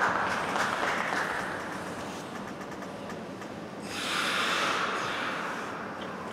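Figure skate blades hissing and scraping on the ice as a skater glides, with a second, longer scrape about four seconds in as she slows to a stop.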